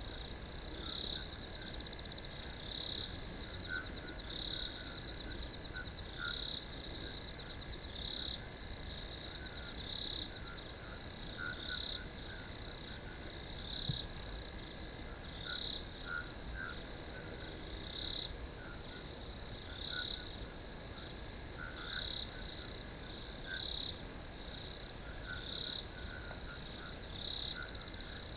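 A chorus of field crickets chirping: a steady high trill with brighter chirps repeating about once a second, over a fainter continuous trill lower down.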